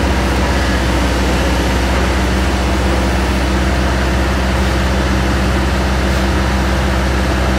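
Heavy truck diesel engine running loud and steady at constant revs, with a deep hum.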